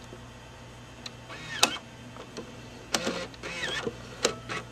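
Clicks and a latch from the cassette compartment of an RCA CC413 VHS camcorder being pressed shut on a tape, with two short whirs from the camcorder's tape mechanism, about a second in and again about three seconds in.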